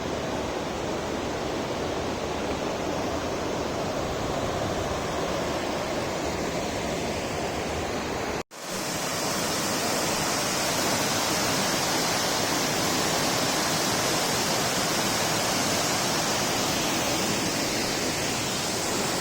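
Steady rushing noise of Dudhsagar Falls, a large waterfall. The sound cuts out for an instant about eight seconds in and comes back brighter and hissier.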